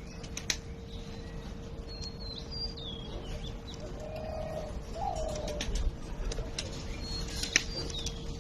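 Pigeons cooing, with a low wavering call about halfway through, among high bird chirps and scattered sharp clicks, over a steady hum and low rumble.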